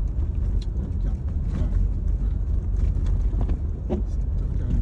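Steady low rumble of a small car being driven, heard from inside the cabin, with a few light clicks scattered through it.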